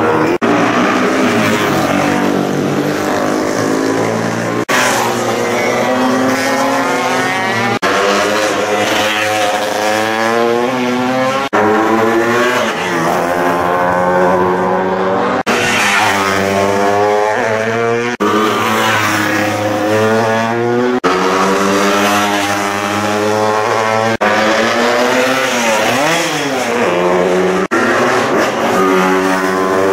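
Classic racing motorcycle engines at high revs, rising and falling in pitch as the riders change gear and brake and accelerate through corners. The sound changes abruptly every few seconds as short takes of separate passes follow one another.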